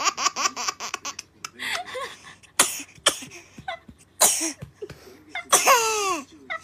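A baby laughing: a quick, rhythmic string of laughs that ends about a second in, then separate breathy, wheezing laugh bursts, the last and longest a squeal that falls in pitch near the end.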